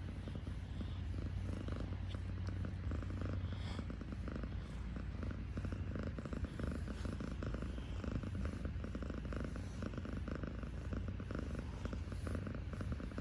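Kitten purring steadily, a continuous low rumble with no break for breath.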